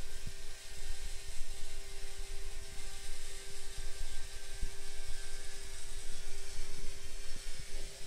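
Small electric motor of a LEGO Power Functions vehicle whirring with a steady whine, over an uneven low rumble with small knocks.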